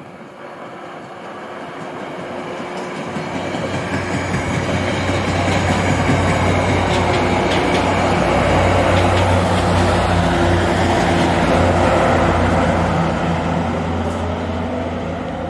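Diesel-hauled train passing close by: steel wheels clattering over the rails and a BL20 diesel locomotive's engine drone. It builds up, is loudest for several seconds as the cars and locomotive go by, and eases off near the end.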